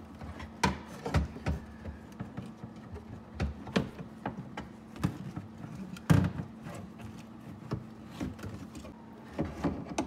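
Tesla Model S rear door-handle assembly knocking and clattering against the door's inner panel as it is jiggled loose by hand after its four bolts are out: a run of irregular clicks and knocks, the loudest about six seconds in.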